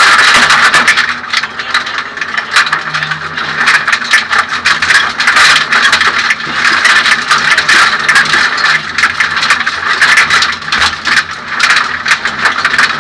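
In-cabin sound of a Suzuki Swift 1600 N2 rally car driven hard on a stage: its 1.6-litre four-cylinder engine running at high revs under dense, constant rattling and clattering.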